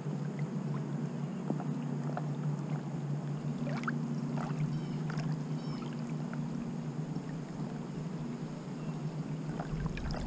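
Small pond waves lapping against a camera set at the water's surface, a steady low wash of water, with a few faint high chirps near the middle.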